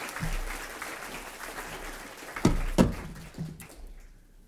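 Audience applause dying away to quiet, with two loud, low thumps close together about two and a half seconds in.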